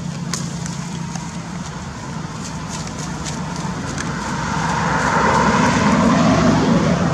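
Motor vehicle passing, growing steadily louder over the second half, over a constant low hum, with a few light clicks in the first half.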